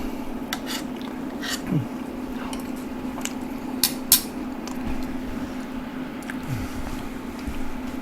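A metal utensil clinking and scraping against the pot of cooked rice: several light clicks, the two loudest close together about four seconds in, over a steady low hum.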